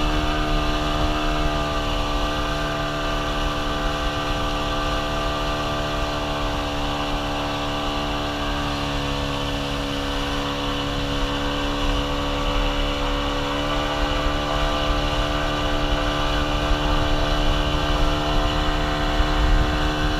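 Motorboat engine running steadily, its pitch sagging a little about halfway through and climbing back up toward the end.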